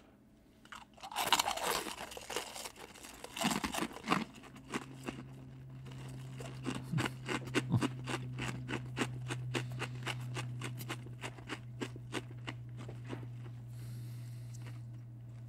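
Fortune cookies being bitten and crunched in two people's mouths. Loud crisp cracking comes in the first few seconds, then a run of quick small crackles and clicks as the cookies are chewed. A low steady hum runs underneath from about four seconds in.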